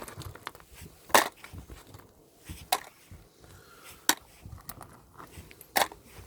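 Small metal jewellery and trinkets being handled and set down on a hard surface: four sharp separate clicks and knocks, a second or so apart, with faint rustling between.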